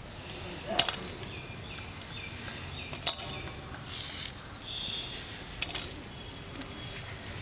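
Steady high drone of crickets, with two sharp metallic clinks as food is pushed off a metal skewer into a stainless steel bowl, the louder one about three seconds in.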